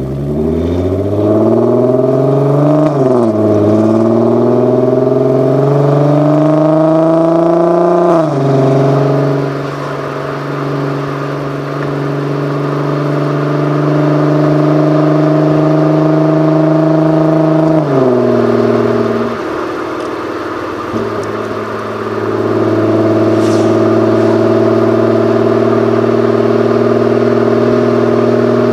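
Audi TT 8N 3.2's VR6 engine and exhaust with 200-cell catalytic converters, accelerating with the revs climbing and dropping at two upshifts, about three and eight seconds in. It then runs at steady revs, drops off about eighteen seconds in, and settles into a steady run again a few seconds later.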